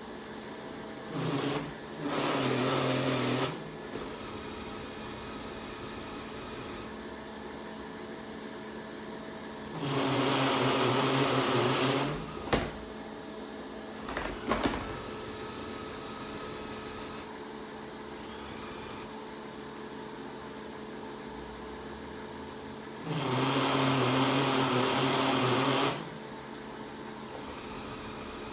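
360 Smart Life S9 robot vacuum cleaner running with a steady motor hum. Three times it gets louder with a whirring rush of two to three seconds, and a few sharp clicks come in the middle.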